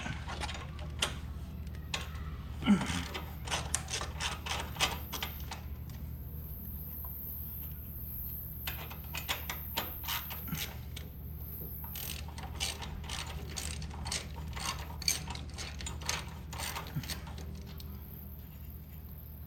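Hand socket ratchet wrench clicking in quick runs of strokes, broken by short pauses.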